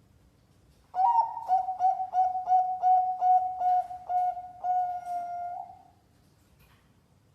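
Zebra dove (perkutut) cooing one song phrase about a second in: a higher opening note, a quick run of short coos at about three a second, and a longer held final note that ends about five and a half seconds in.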